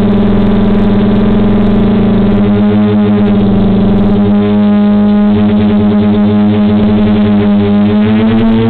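DJI F450 quadcopter's four 920KV brushless motors and 9.5-inch propellers humming steadily while it hovers in position hold, the pitch rising slightly near the end as the throttle changes.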